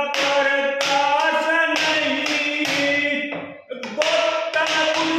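A man singing a Haryanvi ragni without accompaniment, in long held notes that slide in pitch, while tapping out a beat on a wooden table.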